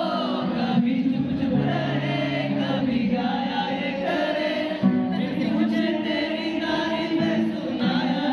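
A man singing a Hindi song into a microphone while playing an acoustic guitar, heard through the hall's loudspeakers.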